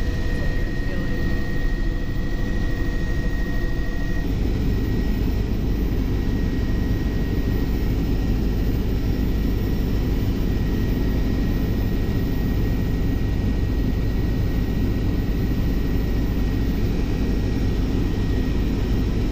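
Helicopter engine and rotor noise heard inside the cabin: a loud, steady drone with a thin high whine over it. The sound changes abruptly about four seconds in, when the drone grows fuller and the whine weakens.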